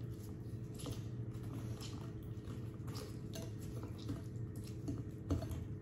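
A lemon squeezed by hand over a bowl of sauce: faint drips and small scattered clicks, with one sharper knock about five seconds in, over a steady low hum.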